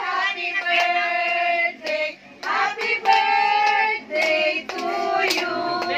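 Voices singing a birthday song in long held notes, with a few hand claps.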